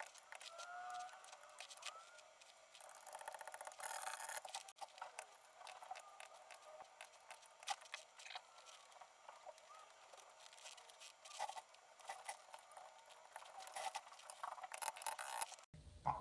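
Faint, irregular plastic clicks and taps of keycaps being handled and pushed onto a mechanical keyboard's Cherry MX switches, busier about three to four seconds in and again near the end.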